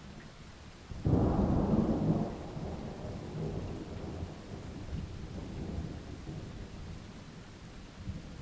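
Thunder: a sudden clap about a second in, then a long rolling rumble that slowly fades, over steady rain.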